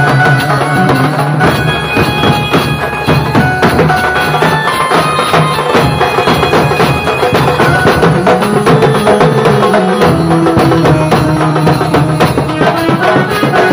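Live band playing loud traditional folk music through large loudspeakers. A stick-beaten drum keeps a fast, steady rhythm under held melody notes.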